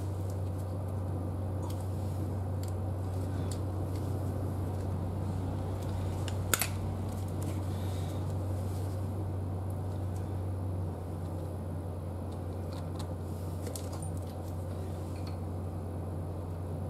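Faint metallic ticks and taps of a folding multi-tool hex key and small bolts being worked on a motorcycle fork bracket, with one sharp click about six and a half seconds in. A steady low hum runs underneath and drops in level about eleven seconds in.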